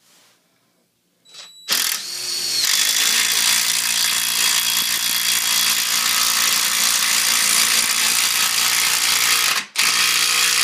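DeWalt DCF885 cordless impact driver driving a 9/16 lag bolt into wood. The motor spins briefly, then the impact mechanism hammers steadily as the bolt bites, for about seven seconds. It stops for a moment, then gives a short final burst near the end.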